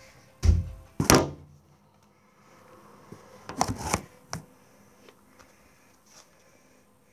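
Two heavy thumps about half a second apart as a football is kicked about on a carpeted floor. A few seconds later comes a short papery rustle and a click as a paperback book is picked up and opened.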